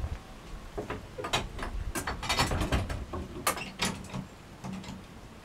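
The metal lock of an old wooden cellar door being worked open by hand: a run of rattling metallic clicks and knocks, busiest in the middle.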